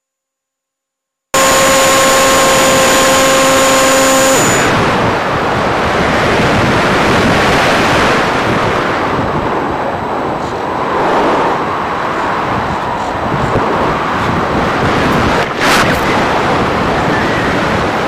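Loud steady rushing noise picked up in flight by an RC plane's onboard FPV camera, the sound of airflow over its microphone. It cuts in suddenly about a second in, with a steady hum under it for the first few seconds that then stops.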